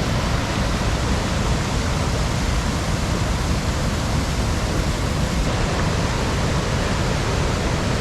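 The steady rush of the River Ure cascading down the stepped Lower Falls at Aysgarth, a heavy flow of water.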